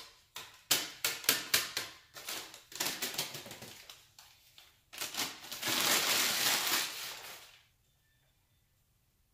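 Newspaper packing crinkling and crackling as it is unfolded and shaken over a plastic tub of micro superworms, in a run of sharp crackles. It then gives a longer, denser rustle as it is crumpled, ending about eight seconds in.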